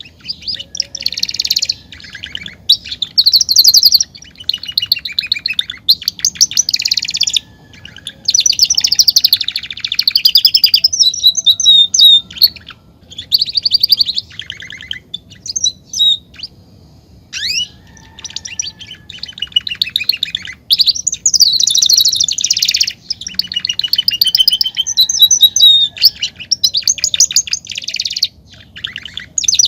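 Male domestic canary singing: long, fast rolling trills and chirped phrases, each a second or two long, with short pauses between them and a few quick upward sweeps midway.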